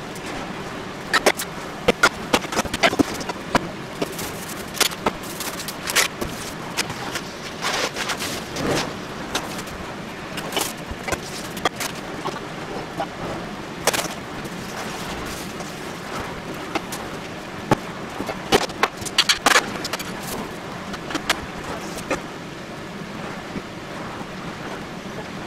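Kitchen things being handled and set down on a wooden counter: scattered knocks and clinks from a stainless steel bowl, a drink can and a glass, over a steady background hiss.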